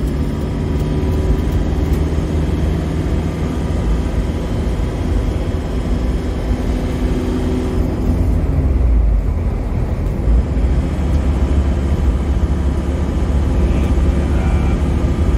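Isuzu Panther's diesel engine droning with tyre and road noise at steady highway speed, heard from inside the cabin. A deep, even low rumble dominates.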